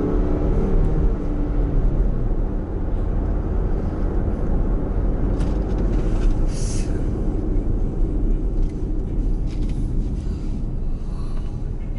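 Car driving through town: steady engine and road noise, with a short hiss about six and a half seconds in.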